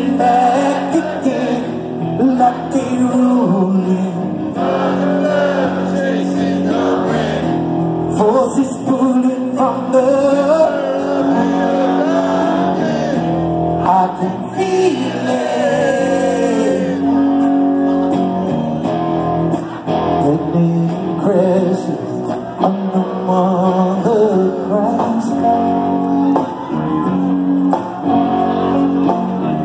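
Live rock band playing, with a male lead voice singing over electric guitars, heard from the audience in a large hall.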